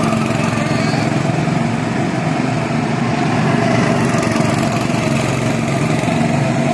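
Go-kart engines running steadily as several karts lap the track, two of them passing close by midway through.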